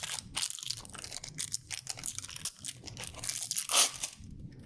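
Plastic packaging crinkling and tearing as a new ink syringe is unwrapped, a rapid run of crackles with one louder tear near the end.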